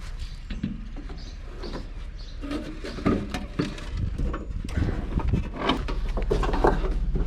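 Irregular knocks, clatter and rustling of junk being handled and moved in a curbside trash pile, getting busier about halfway through, over a steady low hum.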